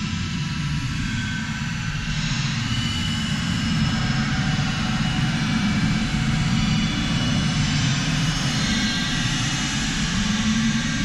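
Dark space ambient music: a steady low rumbling drone with faint high held tones above it, with no beat.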